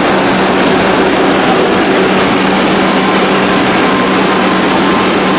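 Subway train noise in the station: a steady, loud rumble with a constant low hum.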